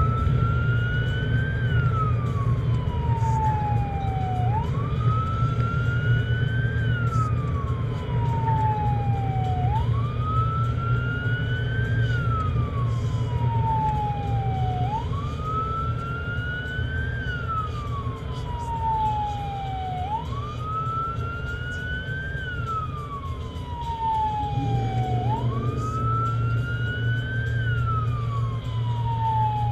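Emergency vehicle siren on a slow wail, each cycle snapping up, peaking and then sliding slowly down, repeating about every five seconds. Heard from inside a moving vehicle over a steady low road and engine drone.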